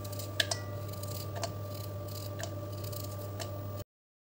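A knife slicing a raw potato held in the hand into sticks that drop into a steel bowl, giving a few sharp clicks about once a second over a steady low hum. The sound cuts off abruptly near the end.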